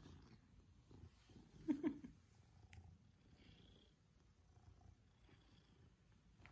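Maine Coon cat purring faintly and steadily in a low, pulsing rumble. Close to two seconds in there is a short voiced sound.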